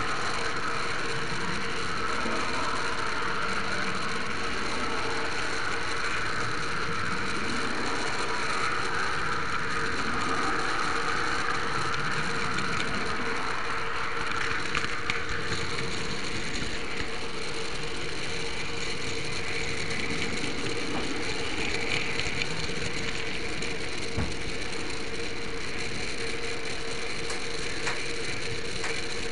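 H0m model train running on its track, heard from a camera riding on one of its wagons: a steady mechanical whirr and rattle of wheels and gearing with a few clicks, its pitch shifting higher about halfway through.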